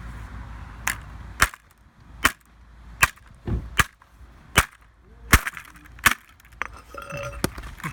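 A hammer striking a MacBook, about nine sharp blows at a steady pace of roughly one every three-quarters of a second, some with a brief metallic ring.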